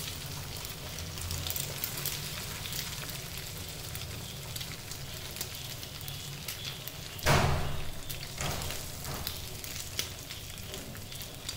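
Beaten egg frying in oil on a flat tawa griddle, sizzling steadily with fine crackles. About seven seconds in there is one brief, louder thump.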